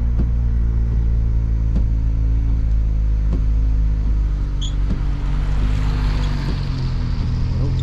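Steady low hum of a car's engine and road noise heard from inside the cabin while driving slowly. About five seconds in, a passing pickup truck adds a hiss of tyres and engine that swells and fades away near the end.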